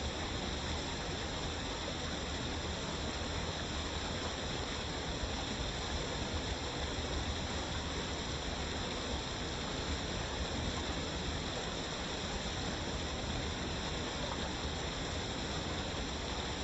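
Waterfall rushing steadily: an even, unbroken noise of falling water with no changes.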